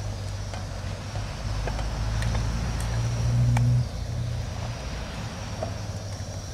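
A low steady motor-like drone, loudest around three seconds in and dropping off suddenly near four seconds, over a steady hiss with scattered crackles from fish roe frying in hot oil.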